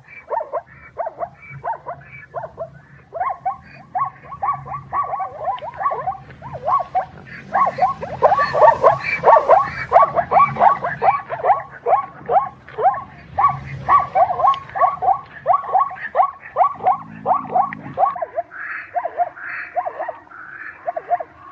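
Zebra calling: a long run of short, repeated barking yelps, about three a second, broken by brief pauses.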